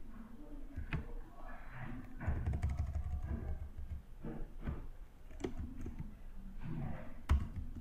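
Computer keyboard keys pressed one at a time: a few faint, irregular clicks while text is deleted and retyped.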